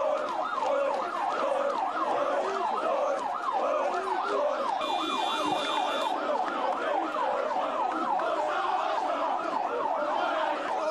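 Siren sounding in rapid repeating pitch sweeps, about three a second, steady throughout. A brief higher steady tone joins it for about a second roughly five seconds in.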